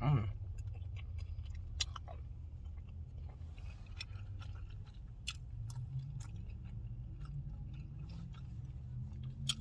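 Mouth sounds of chewing a quesadilla close to the microphone, with scattered wet clicks and smacks, after a short appreciative "mmm" hummed at the start. A steady low hum runs underneath.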